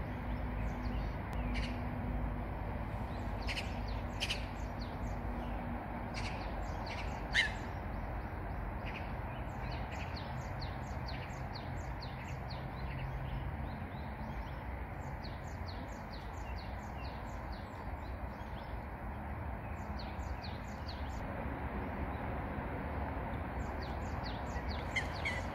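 Wild birds chirping in many short, high calls, sometimes in quick runs, over a steady low background rumble. One louder call stands out about seven seconds in.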